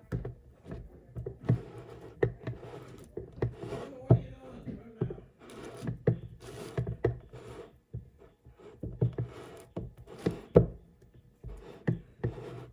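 A spatula scraping around a mixing bowl, with irregular knocks and thunks as it strikes the bowl's side and rim.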